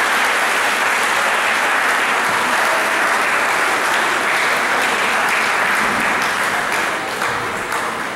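Congregation applauding steadily, thinning a little near the end.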